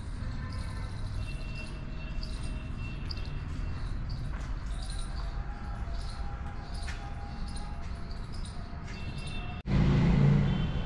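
Outdoor ambience of many small birds chirping over a steady low rumble. Near the end it cuts suddenly to a louder low rumble with a few steady high tones.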